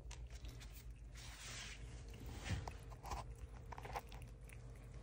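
Prairie dog chewing a treat held in its front paws: quick, faint crunching nibbles with a few sharper bites.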